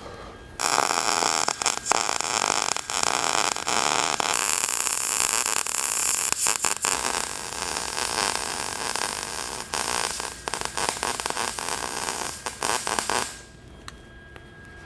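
MIG welding arc crackling steadily as a steel smoke-stack pipe is welded onto a steel tank. It starts about half a second in, breaks off briefly a few times, and stops shortly before the end.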